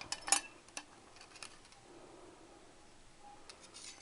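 Light clicks and taps of motorcycle clutch plates being handled and set down, the sharpest click near the start, then a few scattered softer ticks.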